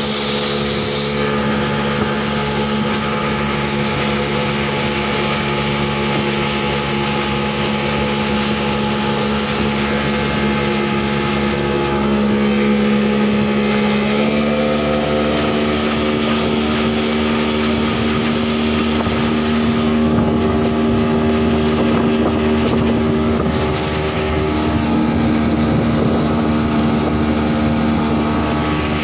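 Outboard motor on a small fibreglass boat running steadily at speed, with water rushing past the hull; the engine note steps up slightly about halfway through.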